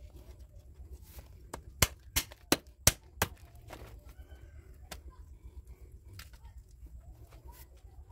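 Five sharp chops of a machete blade into a pig head on a wooden block, in quick succession about a third of a second apart, a couple of seconds in. A chicken clucks faintly afterwards.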